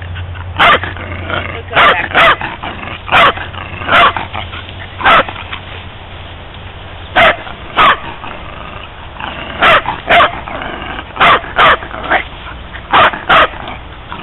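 Dog barking excitedly at a turtle: about fifteen short, sharp barks, single or in quick pairs, with short pauses between them.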